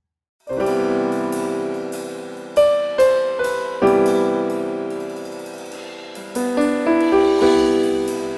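Piano playing slow, sustained chords that ring and fade between strikes; it enters after a brief silence about half a second in, with new chords struck every second or so.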